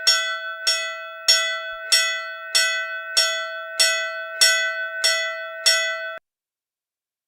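Hindu temple bell rung in a steady rhythm, struck a little under twice a second, each clang ringing on into the next. About ten strikes, then the ringing cuts off suddenly.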